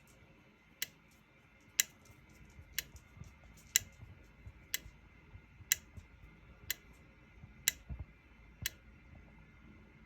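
Sharp clicks about once a second, nine in a row, from the bench rig as the Williams System 11 board steps through its coil test, firing each solenoid driver in turn.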